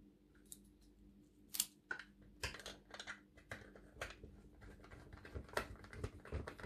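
Small hand screwdriver driving a screw into a black plastic battery tray: faint, irregular light clicks and ticks, beginning about a second and a half in.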